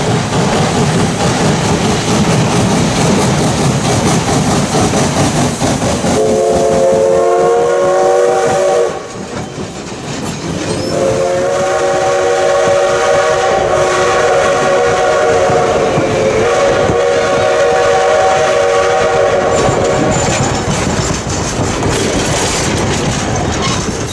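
Wilmington & Western No. 58 steam locomotive passing with its coaches, the wheels clicking over the rail joints. About six seconds in, its whistle gives a short blast of several tones at once, then a long blast of about nine seconds while the coaches roll by.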